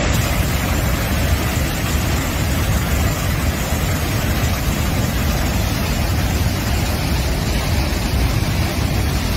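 Dam release water jet blasting from an outlet valve and crashing into the churning river below: a steady, heavy rush of water, heaviest in the low end.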